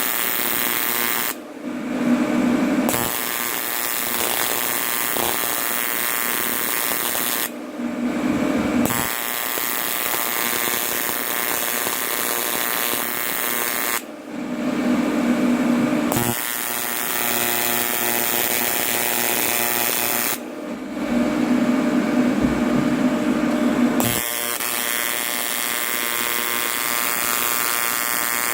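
AC TIG welding arc on aluminum buzzing steadily. Four times it changes for a second or few to a lower hum.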